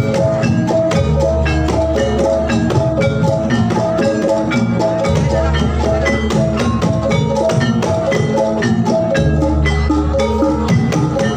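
Javanese gamelan music for a jathilan dance, played loud: a rapid, steady stream of struck metallophone notes with percussion, and a deep low tone sounding again about every four seconds.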